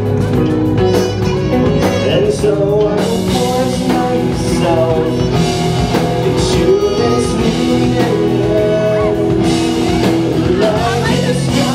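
Live rock band playing loudly: a saxophone melody over electric guitar, bass guitar and drums.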